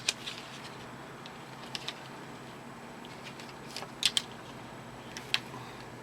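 Light clicks and taps of folding pocket knives being handled and held against each other, a few scattered sharp ticks with a pair near the middle the loudest, over a steady faint hiss.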